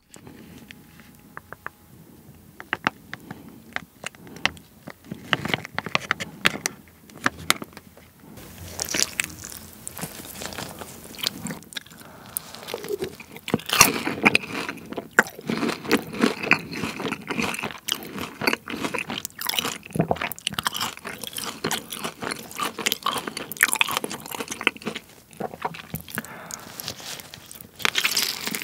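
Soft handling sounds at first, then close-miked crunching bites and chewing of Korean fried chicken, with sharp crisp cracks between the chews.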